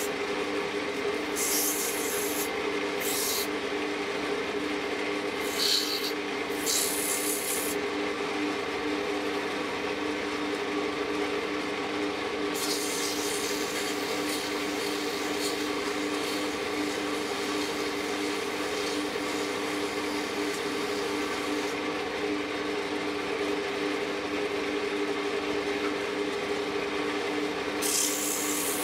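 Sandpaper held against a turned wooden piece spinning on a wood lathe, a hissing rub over the steady hum of the lathe motor. The rubbing comes in short spells over the first few seconds, runs for a long stretch in the middle and returns near the end.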